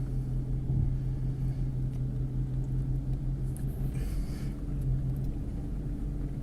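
4x4 vehicle engine running steadily at idle, a low even hum.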